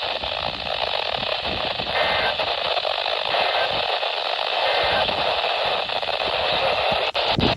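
Radio receiver static: a steady band-limited hiss with no voice on it. Three faint short tones show through the hiss about two, three and a half, and five seconds in.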